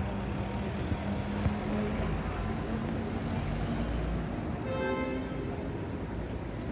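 Lamborghini Aventador SVJ's V12 running at low revs as the car rolls slowly away through traffic, over steady street noise. A brief high-pitched tone sounds about five seconds in.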